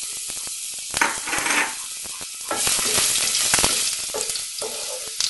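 Spices and chopped ginger sizzling and crackling in hot oil in a pot, with a knock about a second in. A wooden spoon then stirs them through the oil, and the sizzle swells louder for a second or so.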